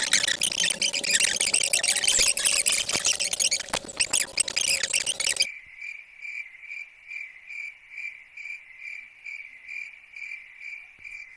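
A loud hissing, crackling noise full of rapid clicks, which cuts off suddenly about five and a half seconds in. After it comes insect chirping: a steady high-pitched trill pulsing about two and a half times a second.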